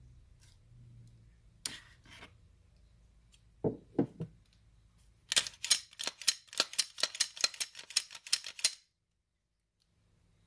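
Handling noise from a Gen 5 Glock 17 pistol: a couple of light clicks and two dull knocks, then a quick run of sharp clicks, about five a second for three seconds, which stops abruptly.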